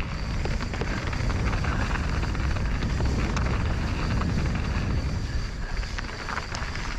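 Mountain bike rolling down a rough downhill dirt trail: steady tyre and trail noise with scattered clicks and rattles from the bike, over wind rumbling on the microphone.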